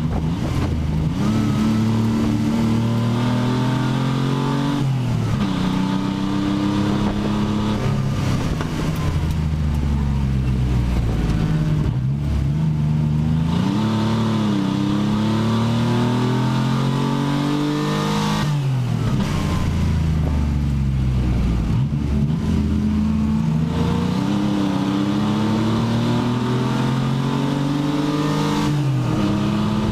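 Pontiac Fiero race car's engine at full racing effort, heard from inside the stripped cabin. Its pitch climbs under acceleration and drops sharply several times.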